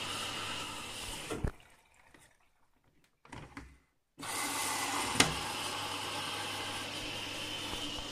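Washing machine filling with water, a steady rushing hiss of water pouring through the detergent drawer. It stops abruptly about a second and a half in and starts again about four seconds in, with a sharp click at each of those points.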